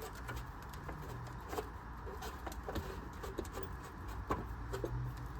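Scattered light clicks and taps of parts and tools being handled, the sharpest about four seconds in, over a steady low hum.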